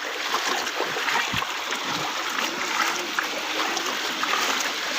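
Floodwater flowing hard, a steady dense splashing rush of water.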